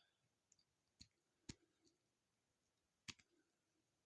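A few faint, sharp clicks of a plastic action figure's joints being moved and posed, about a second in, at a second and a half, and just after three seconds.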